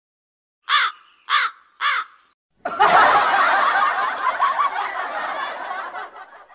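Three short calls about half a second apart, then a burst of canned crowd laughter that runs for a few seconds and fades out.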